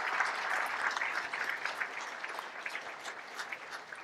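Audience applauding, loudest at first and thinning out toward the end into scattered claps.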